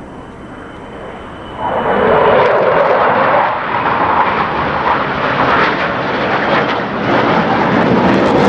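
Military jet fighter flying past during an air show demo, its engine noise rising sharply about a second and a half in to a loud, steady roar.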